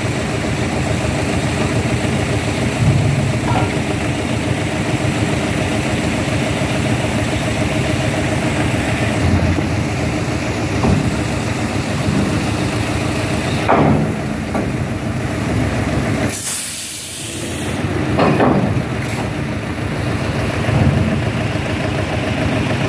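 Heavy diesel truck engine idling steadily, with a short, sharp air-brake hiss lasting about a second, some sixteen seconds in.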